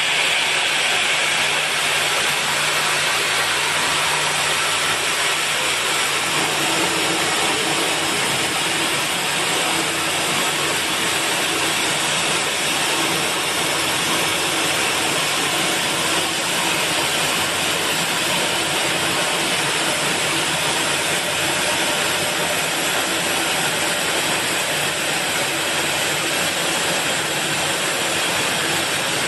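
CNC machine tool cutting iron: a steady machining hiss with a faint hum, unchanging in level throughout.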